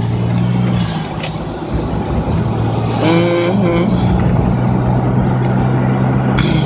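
Car running, heard from inside the cabin as a steady low engine drone with road rumble. A brief pitched tone sounds about three seconds in.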